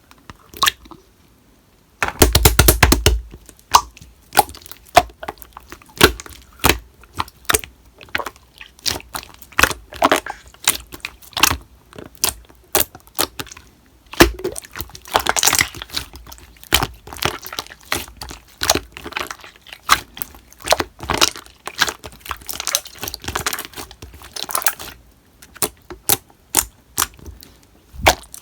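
Slime being pressed, stretched and squished by hand, giving a dense run of sharp, irregular crackling and popping clicks, with a louder burst about two seconds in.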